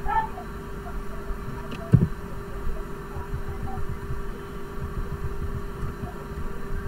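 Steady electrical hum over a low background rumble, with one soft thump about two seconds in.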